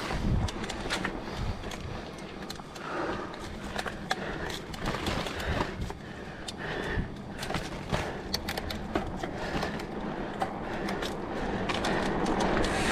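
Mountain bike being ridden over a rough dirt trail: tyre noise on dirt with many irregular clicks and knocks as the bike rattles over bumps. A rushing noise grows louder near the end.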